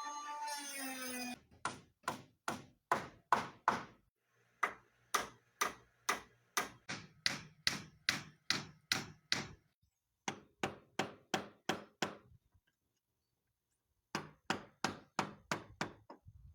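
Hammer blows struck in steady runs of about three a second, four runs with short pauses between them. A brief motor whine cuts off just before the first blow.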